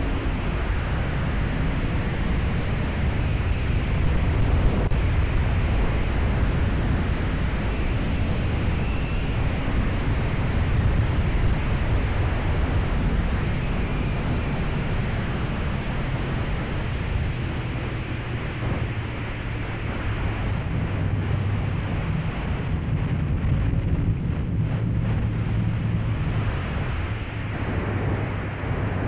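Heavy wind rush on an onboard action-camera microphone, with the 1997 Honda VFR750F's 748 cc V4 engine running underneath as the motorcycle is ridden downhill through bends. The engine note shifts a little with throttle but stays low against the steady wind noise.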